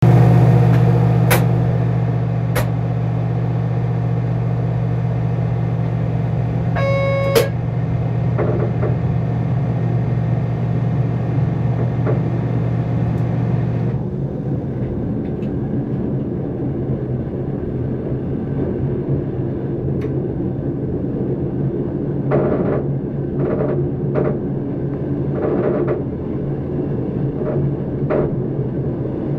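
Dutch NS electric train heard from the driver's cab: steady running rumble with a low hum that stops about halfway, after which rail noise with scattered knocks takes over. A short beep sounds about a quarter of the way in.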